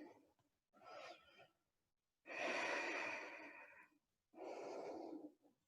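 A person breathing audibly in a held yoga pose: a short faint breath about a second in, then a longer breath of about a second and a half, and another shorter one near the end.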